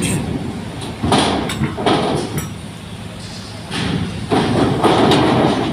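Cars driving off a car ferry, engines running, with several loud rattling thuds: about a second in, near two seconds, and a longer run of them in the last two seconds.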